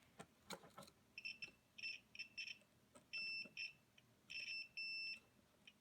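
Multimeter continuity beeper sounding in about eight high, steady beeps, some brief and some held for about a third of a second, as the probes touch and leave the power jack's contacts; each beep signals a connection between the probed contacts. A few faint clicks of the probe tips come near the start.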